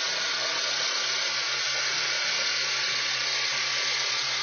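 Honda Civic engine running with a gear engaged while cold, giving a steady hissing whir over a low hum. The owner says this noise only occurs when the engine is cold and in gear.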